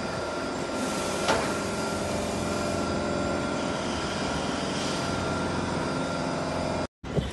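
TGV Lyria high-speed train standing at the platform, its power equipment and cooling fans giving a steady drone with a constant high tone. A single sharp clank comes about a second in, and the sound drops out for a moment near the end.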